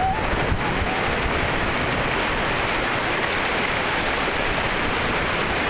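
Ocean surf breaking and washing in over the shallows, a steady rush with no let-up. A faint distant voice calls briefly near the start.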